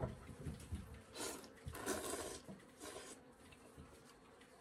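A person eating noodles from a bowl: a few short, soft slurps, the strongest about two seconds in, with quiet chewing between.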